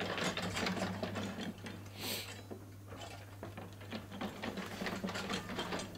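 Large power-driven lithographic cylinder press (a Schnellpresse) running: a steady motor hum under rapid, continuous mechanical clatter of gears and sheet grippers as a sheet is fed onto the cylinder, with a short hiss about two seconds in.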